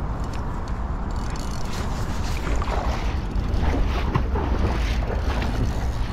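Wind rumbling on the microphone, with a few scuffing, crunching steps on the wet sand and leaves of a riverbank from about halfway through.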